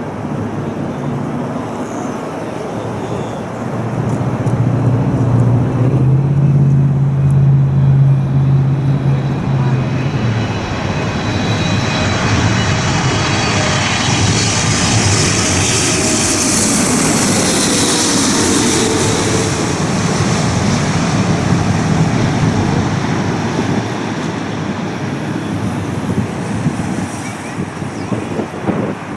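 Jet airliner passing close by: its engine noise builds, peaks with a high hiss and a falling whine about two-thirds of the way in, then fades.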